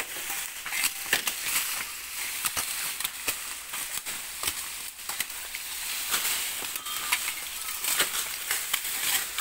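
Dry sugarcane leaves rustling and crackling during hand harvesting, with irregular sharp snaps and chops as the cane knife strikes and cuts the stalks.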